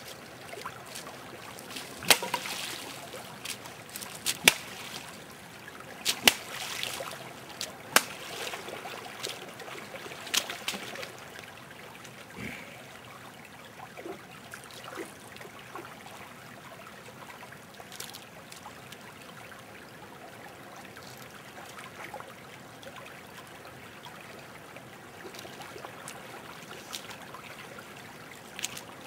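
Shallow stream trickling over stones, with sharp splashes of boots wading through the water about every two seconds during the first ten seconds or so, then mostly the stream alone.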